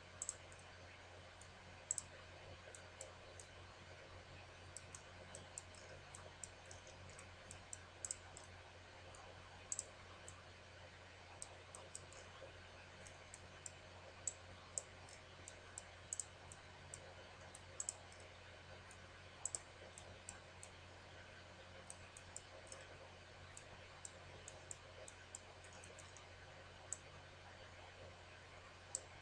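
Computer mouse buttons clicking, sharp single clicks at irregular intervals, about one or two a second, over a faint steady low hum.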